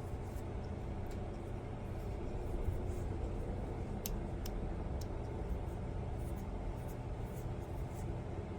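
Light, scattered clicks and ticks of small screws being tightened into a 3D-printed plastic propeller hub, over a steady low hum.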